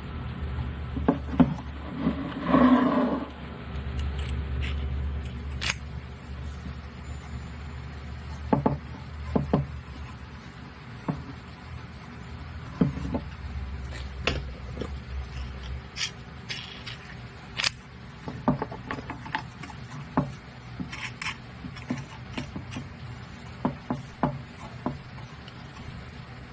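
Wooden wheel clamps being set and tightened on threaded rods: scattered clicks and knocks of wooden wheels, washers and wing nuts, with rubbing and scraping on the workbench and a louder scuffle about three seconds in. A low steady hum runs under it and stops about two-thirds of the way through.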